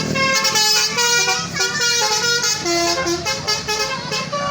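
Tour bus telolet horn: a set of air horns playing a quick tune of short, stepped notes.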